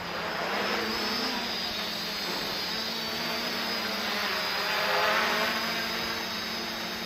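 Electric quadcopter's brushless motors and propellers whining and buzzing as it hovers and flies low past, growing loudest as it comes closest, about five seconds in.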